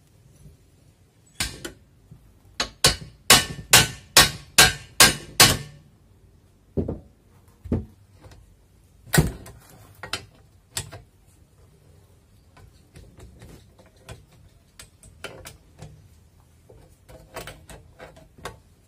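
Hammer blows on the steel crank and bottom bracket of a bicycle being dismantled: a quick run of about nine sharp metal strikes, about two a second. Then a few single knocks, and later lighter clicks and taps of tools on the frame.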